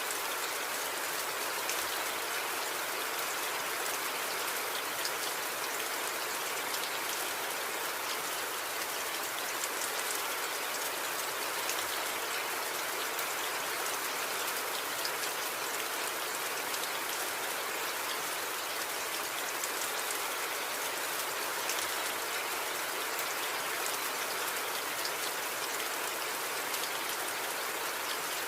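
Steady rain falling: an even hiss with faint, scattered ticks of individual drops.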